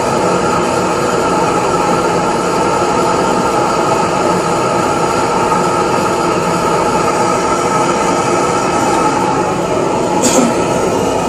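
Gas blowtorch flames roaring steadily against the hot-bulb head of a Lanz Bulldog single-cylinder hot-bulb engine, preheating it for starting. A brief sharp metallic click comes about ten seconds in.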